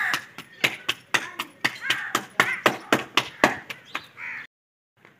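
Roti dough being slapped between bare palms by hand to flatten it into a roti, a quick rhythmic patting of about four to five slaps a second. The patting cuts off abruptly about four and a half seconds in.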